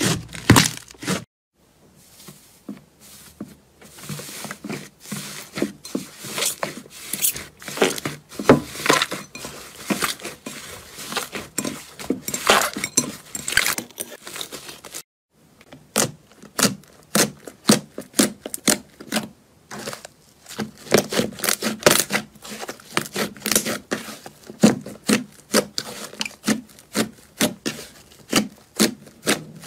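Hands squeezing and kneading slime, giving a dense run of crackling pops and squelches as trapped air is pressed out. The sound stops twice briefly.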